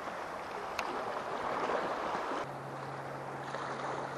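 Sea water washing and lapping against the rocks of a breakwater, a steady wash of noise, with a single click about a second in and a low steady hum that starts about halfway through.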